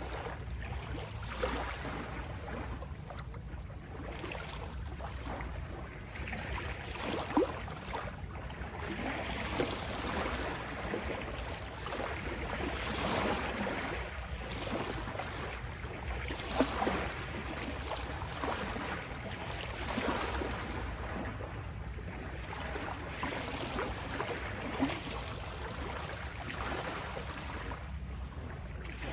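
Small sea waves lapping and rippling at the shore: a steady wash of water that swells and eases every few seconds, with a few small splashes.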